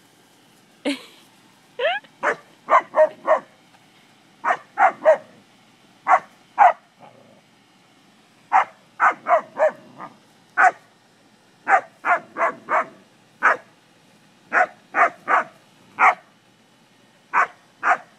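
A dog barking at cattle, sharp barks in quick bunches of two to four, repeated over and over.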